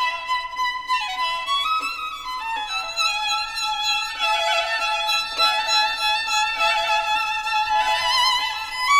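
Background music: a violin melody with vibrato and sliding notes.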